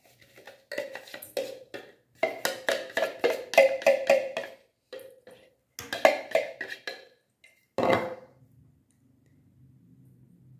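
Rapid runs of hand taps on an upturned plastic measuring jug held over a stainless steel bowl, knocking the last of a sticky nut-crumb mixture out, several taps a second with a slight ringing. Near the end one heavier knock as the jug is set down on the wooden worktop.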